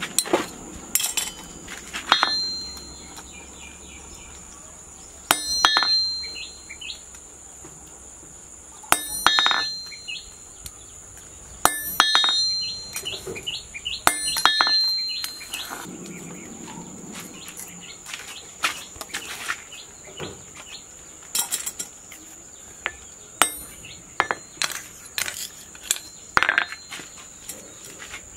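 Hand hammer striking a steel punch on the red-hot spring-steel tang of a knife blank on an anvil, punching handle-pin holes; each blow rings sharply off the anvil. Heavy blows come in clusters in the first half, then lighter, quicker taps. A steady high insect drone sits underneath.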